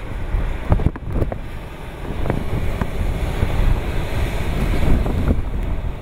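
Storm surf from a typhoon crashing and surging against a rock cliff, a dense low rumbling wash that swells toward the later part. Heavy wind buffets the microphone throughout, with a few sharp clicks, the loudest about a second in.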